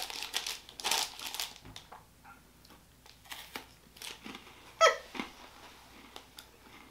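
Candy bar wrapper crinkling in the hands, then a few faint clicks and one short, sharp squeak about five seconds in, the loudest sound.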